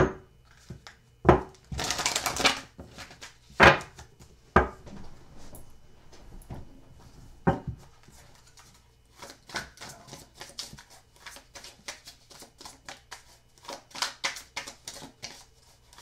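Tarot cards being handled and shuffled by hand: a few sharp taps and a short riffle in the first seconds, then a fast run of quick soft card flicks from about halfway on.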